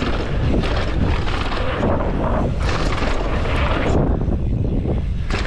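Wind buffeting the action camera's microphone with a steady low rumble, over mountain bike tyres rolling on packed dirt and short rattles and knocks from the bike over bumps.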